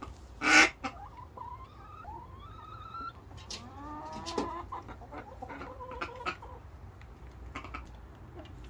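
Domestic hen clucking, with drawn-out calls that rise in pitch, after one loud harsh call about half a second in.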